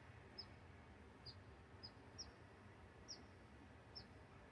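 A small bird repeating a short, high chirp that drops in pitch, about one a second, over a faint low rumble of ocean surf.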